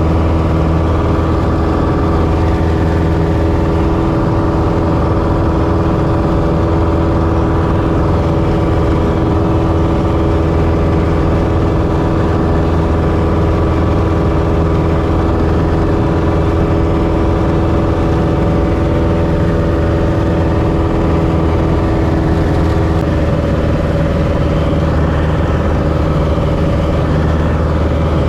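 Piston engine and propeller of a two-seat high-wing light aircraft droning steadily in cruise flight, heard from inside the cabin. Its pitch shifts slightly about two-thirds of the way through.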